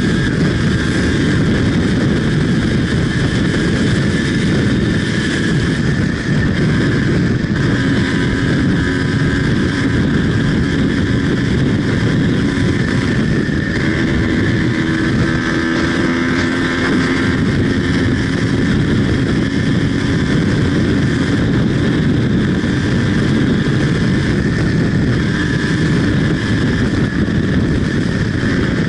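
Yamaha DT 180's two-stroke single-cylinder engine running hard at speed on a dirt road, with wind rushing over the microphone. The sound is steady and loud throughout, and the engine note shifts slightly in pitch around the middle.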